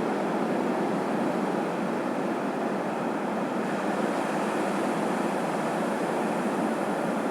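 Ocean surf washing onto a sandy beach: a steady, even rushing with no single wave standing out.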